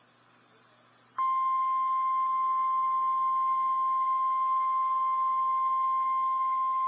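NOAA Weather Radio's Emergency Alert System warning alarm tone: a single loud, steady high tone that comes on suddenly about a second in, after faint hiss. It signals that a severe thunderstorm warning is about to be read.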